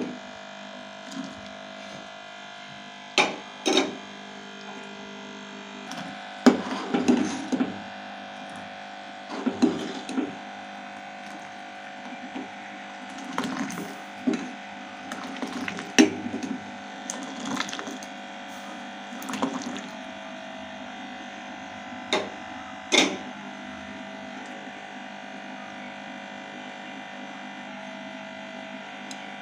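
A steel ladle clinking and scraping against a steel saucepan of boiling milk tea as it is stirred and ladled, in scattered knocks over a steady background hum. The knocks stop a few seconds before the end, leaving only the hum.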